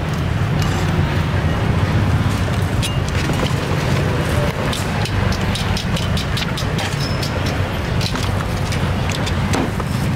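Steady low rumble of street traffic, with scattered light clicks and clinks from a cleaver and metal tongs handled at the chopping block.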